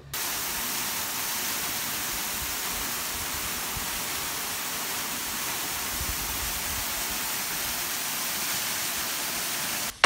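Steady rushing hiss of a thin waterfall pouring down over rocks, even and unchanging, starting and cutting off abruptly.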